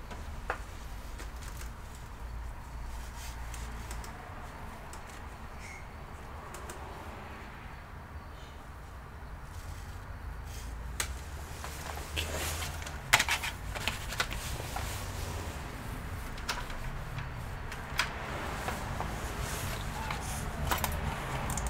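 Low steady hum with scattered light clicks and taps of handling at a workbench, most of them in the second half.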